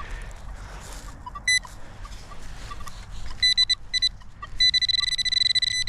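Metal detector beeping on a buried metal target: a single short beep, then rapid beeps that run together into an almost continuous high tone, the signal getting stronger as the coil or probe closes on the target.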